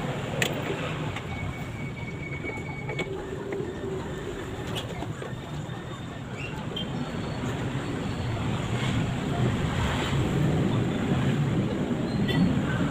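Washing machine running under test after a new timer switch and drain switch were fitted: a steady mechanical noise that grows louder over the second half, with a sharp click about half a second in.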